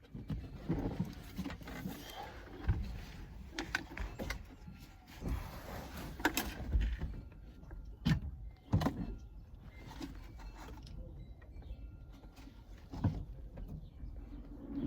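Scattered knocks, clunks and rustling as the center console is handled and set back in place inside the car over the new carpet.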